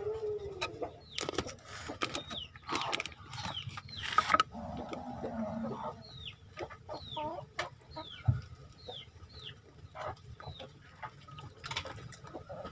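Plastic bag crackling and a knife scraping in a stingless bee nest box, loudest in a few strokes in the first half. Behind it come repeated short, falling bird chirps and some clucking calls.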